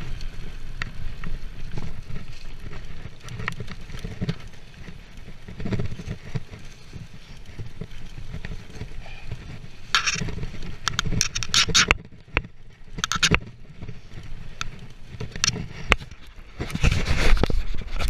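Mountain bike ridden fast down a dirt forest trail: a steady low rumble from the tyres and rushing air, broken by sharp clicks and rattles of the bike over bumps. Louder bursts of hissing, crunching noise come about ten seconds in and again near the end.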